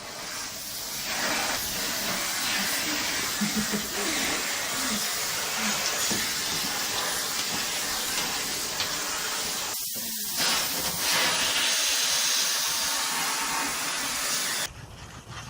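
A steady, loud hissing rush of noise, like spraying water or blowing air, that cuts off abruptly near the end.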